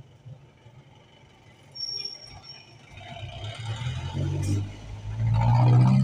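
A motor vehicle's engine passing close by in the street, growing louder through the second half to a peak near the end. A brief high-pitched squeal comes about two seconds in.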